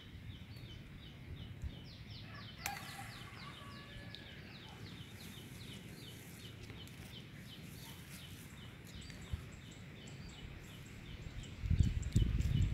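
A small bird chirps steadily, short high notes about three times a second. Near the end comes loud rustling and knocking as tree branches and the phone are handled by someone climbing.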